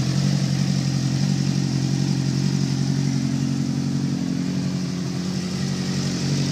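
Suzuki GSX-R motorcycle engine running steadily at idle with a rapid knocking in its note, the knock the owner is filming it for. The level dips slightly about five seconds in and comes back near the end.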